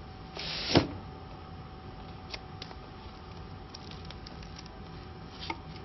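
Paper label stock being handled on a roll: a short rustle ending in a sharp knock a little under a second in, followed by scattered light ticks and scratches as a utility knife scores the paper liner.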